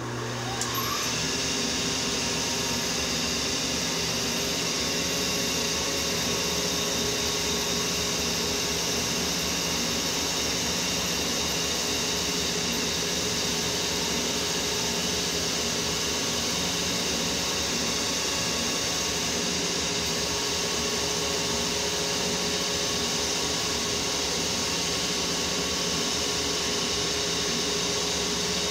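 Rivett 918S turret lathe running with its spindle turning at steady speed: an even mechanical hum with several steady whining tones over it.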